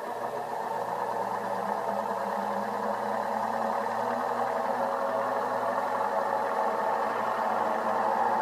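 800B benchtop centrifuge's brushed electric motor running after being switched on, a steady whir that grows gradually louder as it spins up. It runs again now that its switch wires and carbon brush have been replaced.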